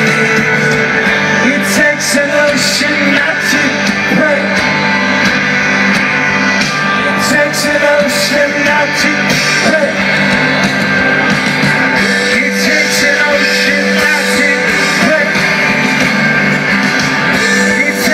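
Rock band playing live and loud through a festival PA: sustained guitars and keyboards over drums with repeated cymbal crashes, heard from within the crowd through a phone's microphone.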